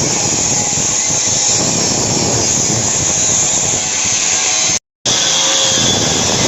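Suzuki APV's G16A four-cylinder engine running with a loud, steady, rough exhaust noise, the catalytic converter and muffler noise fault being diagnosed. The sound cuts out briefly about five seconds in.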